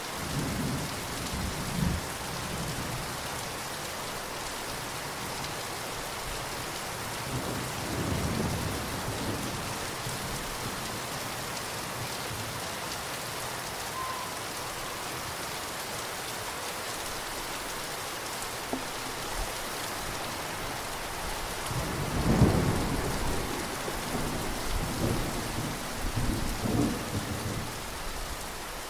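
Steady rain falling, with thunder rumbling over it: short low rumbles near the start and about eight seconds in, then a louder, longer roll of thunder in the last third.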